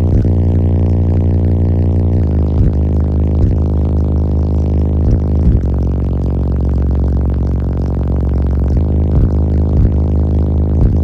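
Bass music played very loud through two 18-inch Wolfram prototype subwoofers in a small car, heard inside the cabin: deep, held bass notes with a buzzy stack of overtones above them, the notes changing after short breaks every second or few seconds.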